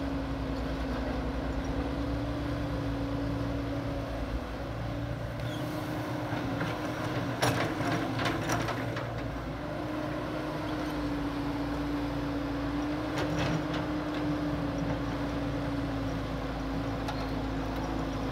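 Caterpillar tracked excavator's diesel engine running steadily under load while it digs, with a steady drone. A few sharp knocks come about seven to nine seconds in.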